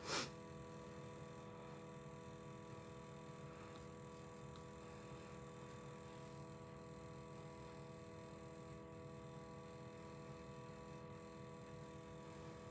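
Near silence: faint room tone with a steady electrical hum of several unchanging tones.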